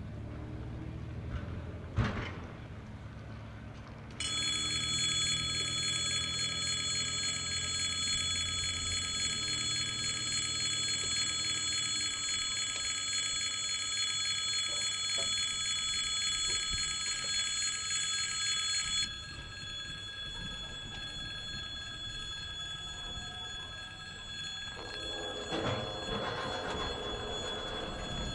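Railway level-crossing warning bell, a continuous electric ring that starts suddenly about four seconds in and stops about two-thirds of the way through. Near the end a rising rumble comes in as the freight train approaches the crossing.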